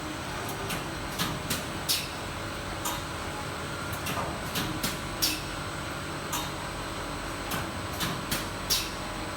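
Edge banding machine and its panel-feeding conveyor running with a steady hum and a faint high whine, and irregular sharp clicks and clacks over the top.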